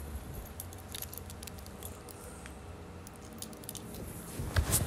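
Handling noise from a phone held in the hand: rubbing and scattered small clicks, with a louder bump about four and a half seconds in.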